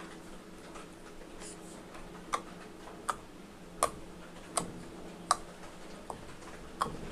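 Clear slime being poked and pressed with a finger in a bowl. From about two seconds in it gives a regular series of sharp pops roughly every three-quarters of a second, over a faint steady hum.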